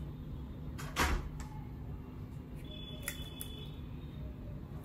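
Fingers mixing rice and dal on a steel plate: a single sharp tap about a second in, then a few faint clicks and soft wet sounds of the food being worked, over a low steady hum.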